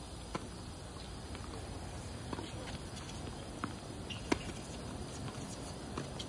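Tennis ball hit back and forth with rackets in a rally: a serve just after the start, then sharp pocks of racket strikes and ball bounces every second or two, the loudest about four seconds in.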